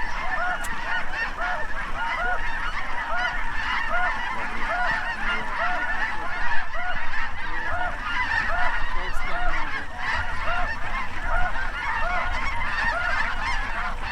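A flock of geese honking and clucking, many short calls overlapping in a steady, continuous chorus.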